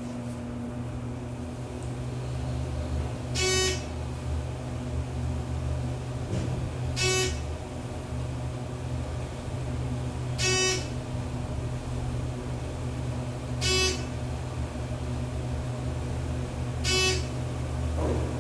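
A thyssenkrupp Synergy machine-room-less traction elevator car travelling up with a steady low hum. A short electronic beep sounds five times, about three and a half seconds apart, one at each floor passed.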